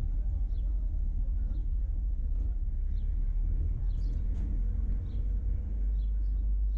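Vehicle driving along a road: a steady low rumble of engine, tyres and wind. Faint short high chirps come and go through it.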